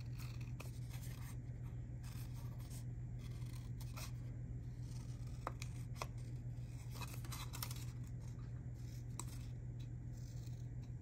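Scissors cutting around a piece of paper ephemera: faint, irregular snips and paper rustles over a steady low hum.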